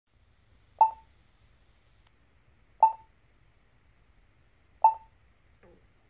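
Polara XAV2E-LED accessible pedestrian push button station sounding its locator tone: a short beep, three times, about two seconds apart.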